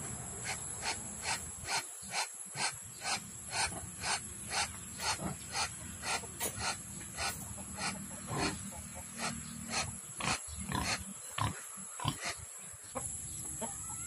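Domestic duck giving a steady run of short, hoarse calls, about two or three a second, rather than a full loud quack.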